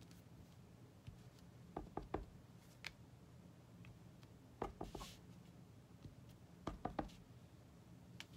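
Clear leaf stamp on an acrylic block tapped onto an ink pad and pressed onto cardstock: a few clusters of two to four quick, light knocks, spaced a second or two apart.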